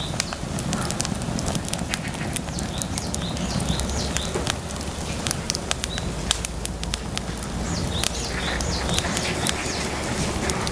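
Wood fire crackling, with many sharp pops over a steady low rumble. Birds chirp briefly now and then, a few times in the middle and again later.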